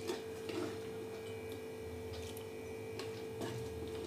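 Handfuls of crushed grapes being scooped from a steel bowl and dropped into a ceramic jar: scattered soft clicks and wet pats. A steady electrical hum runs underneath and is the most prominent sound.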